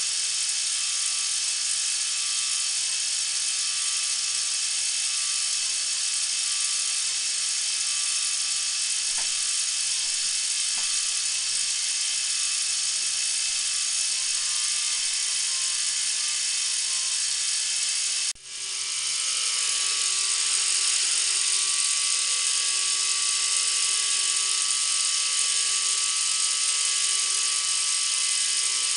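Small K'nex electric motor driving the plastic gears of a toy chair swing ride, a steady high-pitched whirring with several held tones. About two-thirds of the way through it cuts out abruptly for a moment, then comes straight back a little louder.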